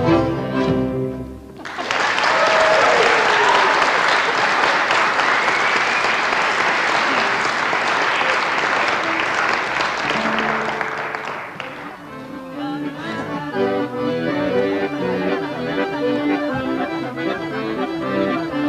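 A tune on fiddle and guitar ends, and an audience applauds for about ten seconds. Instrumental folk music then starts again about twelve seconds in.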